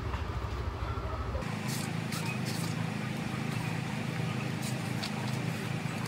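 Steady background ambience with a low rumble. About a second and a half in it cuts abruptly to a different ambience with a steady hum, faint voices and scattered light clicks.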